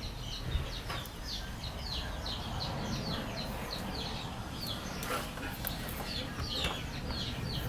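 A small bird chirping over and over, short falling chirps two or three a second, over a steady low rumble, with a few sharp clicks.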